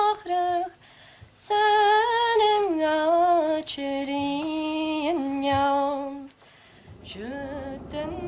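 A single voice singing a slow, unaccompanied melody in long held notes with a slight waver. It pauses briefly about a second in and again near the end, and another voice starts just before the end.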